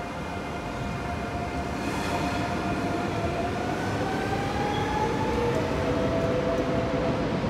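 Electric trains in a station. A departing double-deck regional train's traction motors whine, climbing in pitch as it accelerates out, over a steady rail rumble that grows louder. A second steady whine comes in near the end as an approaching TGV draws close.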